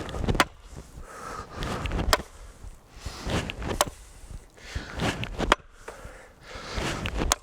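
Chopping axe biting into a wooden log: five sharp strikes, about one every second and a half to two seconds, with heavy breathing as each swing is drawn up.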